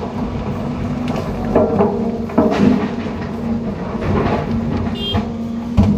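John Deere 350G excavator's diesel engine and hydraulics running steadily, heard from inside the cab, with loud knocks and clatter of rip rap rocks tipped from the bucket into a dump truck bed, about one and a half to two and a half seconds in and again near the end.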